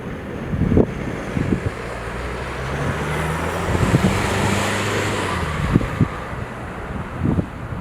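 A vehicle driving past on the road: engine and tyre hiss swell to a peak about halfway through, then fade. Wind gusts buffet the microphone with low thumps.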